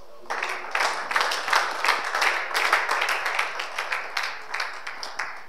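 Audience applauding. It starts just after the opening and dies down near the end.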